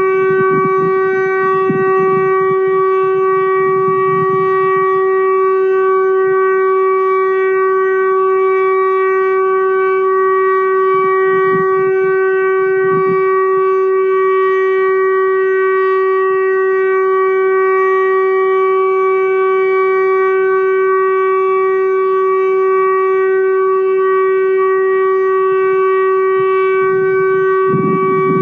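Outdoor warning siren sounding a steady tone held at one unchanging pitch, with a low rumble underneath in the first few seconds.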